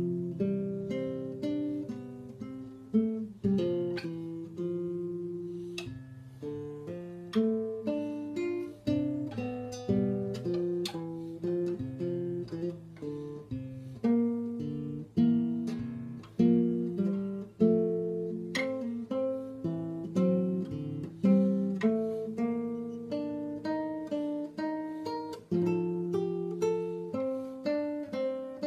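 Solo acoustic guitar played with the fingers: a slow piece of single plucked notes and chords, each ringing and fading, a melody over bass notes.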